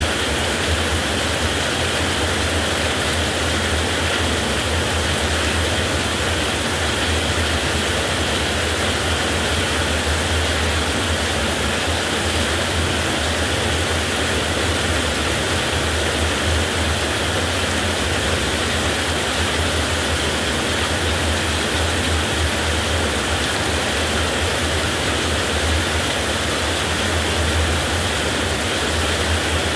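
Heavy rain falling steadily: an even, unbroken hiss with a steady low rumble underneath.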